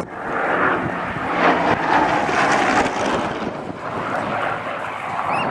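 Hawker Sea Hurricane's Rolls-Royce Merlin V12 engine as the fighter flies past, the sound swelling over the first second or so and easing off toward the end, with wind buffeting the microphone.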